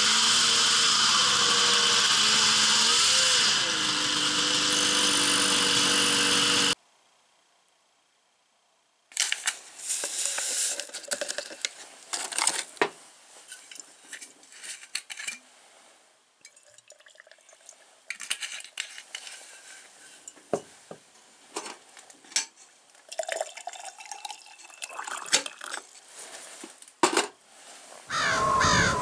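Snowmobile engine running during a ride, its pitch and level dropping as it eases off about three and a half seconds in, then cutting off suddenly. After a short silence come irregular small clicks and clinks with a faint trickle, and near the end a new, louder sound begins.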